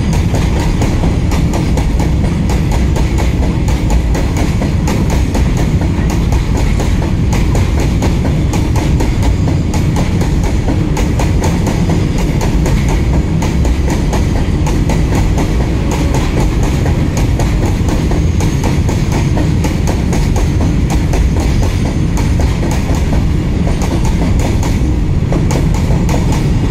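Freight train wagons rolling past close by: a loud, steady rumble with a constant run of clicks from the wheels over the rail joints.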